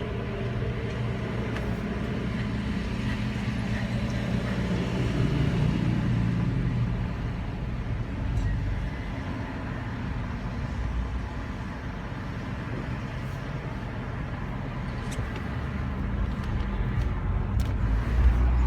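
Nissan car running with a steady low hum and a noisy grinding spread above it, growing louder near the end. This is the grinding noise whose cause the owner is asking about.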